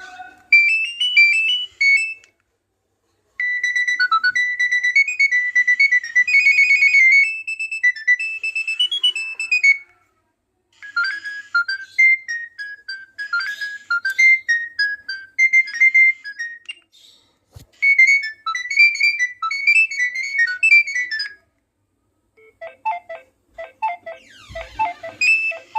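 A Nokia 6610i mobile phone playing its built-in ringtones one after another: short electronic melodies of quick high notes, with brief pauses between tunes and a lower-pitched tune near the end.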